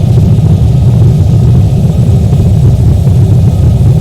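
Loud, steady low rumble of a Boeing 737 airliner, heard from inside the cabin.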